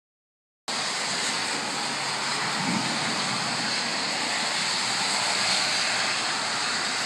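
Steady hiss of heavy rain and wind in a thunderstorm, starting abruptly under a second in and holding even throughout.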